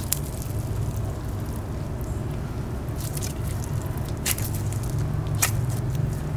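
Hands squishing and poking an avalanche slime (orange slime over clear glitter slime), with a few sharp clicks and pops about three, four and five and a half seconds in, over a steady low hum.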